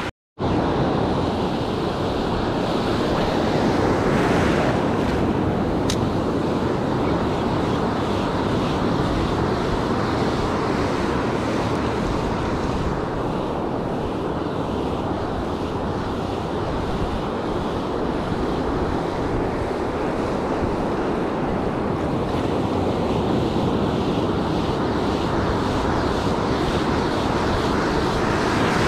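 Ocean surf breaking and washing up the beach in a steady wash of noise, with wind buffeting the microphone.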